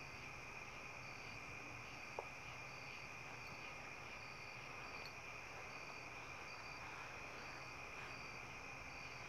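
Faint crickets chirping at night: a steady high trill, with a higher chirp repeating at an even pace over it. One faint click about two seconds in.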